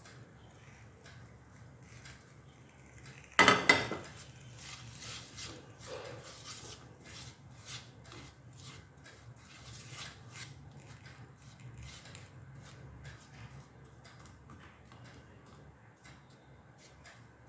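A non-stick frying pan set down with a clatter on a stainless-steel gas stove about three and a half seconds in, followed by faint scraping and light clicks of kitchen handling.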